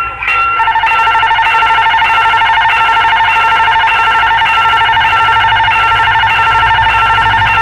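Railway level crossing's electronic warning bell ringing continuously in a fast, even trill of several tones, with a lower tone joining about half a second in, warning that a train is approaching.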